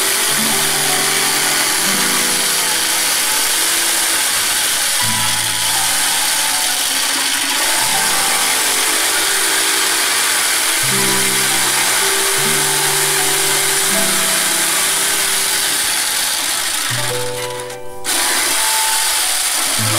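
Electric jigsaw cutting a thin wooden board, running steadily and stopping briefly near the end before starting again. Background music of slow, held notes plays throughout.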